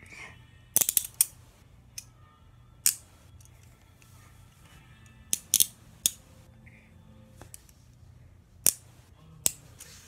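Hinged steel handcuffs ratcheting shut around the ankles: sharp metallic clicks, in quick clusters about a second in and again around five to six seconds in, with single clicks between.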